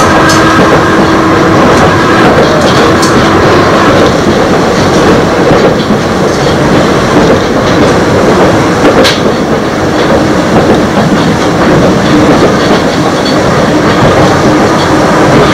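Running sound of an Eizan Electric Railway electric car with nose-suspended traction motors, heard on board: a steady rumble with a motor and gear whine that fades about four seconds in and returns near the end. There is a sharp click about nine seconds in.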